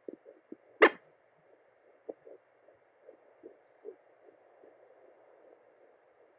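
Sonoline B home fetal Doppler through its speaker: steady static hiss with irregular soft bumps from the baby moving, and one sharp thump about a second in. A faint fast fetal heartbeat sits in the background.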